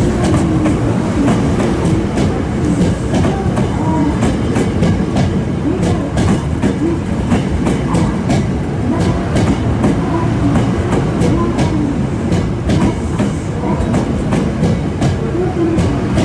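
Hankyu electric commuter train rolling past at close range, with a steady rumble and wheels clacking over rail joints.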